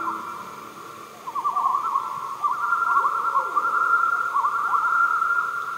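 Several common loons calling together in a dense, quavering tremolo chorus that swells after about a second and carries on, with one lower gliding call near the middle.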